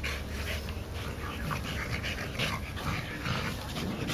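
Young Olde Boston Bulldogges play-fighting, making a run of short, irregular dog noises.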